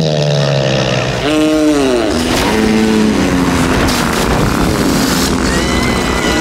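A long, loud comedic fart sound effect: a sputtering blast whose pitch slides up and down over a rushing noise. Near the end a thin high whistling joins in.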